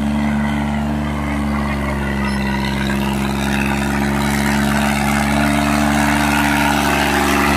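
Mahindra 265 DI tractor's three-cylinder diesel engine running steadily under load while pulling a disc harrow through dry soil, getting gradually louder as it comes closer.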